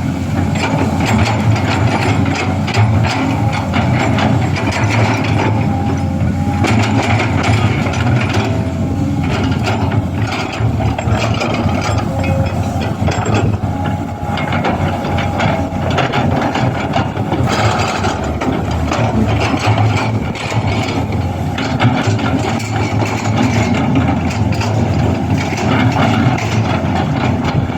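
Hydraulic excavator engines running steadily under load, with frequent clanks and knocks from the machines' working parts.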